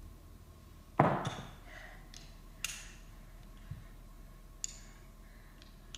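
Magnetic plastic rods and steel balls of a magnetic construction toy clicking and clacking together as they are handled and snapped on. There is a louder knock about a second in, then several short, sharp clicks.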